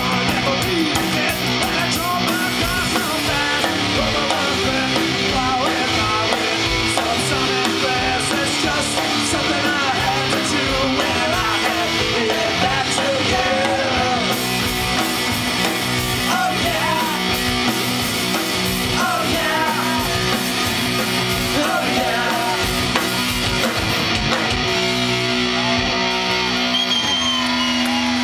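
Punk rock band playing live and loud: distorted electric guitar, electric bass guitar and a drum kit.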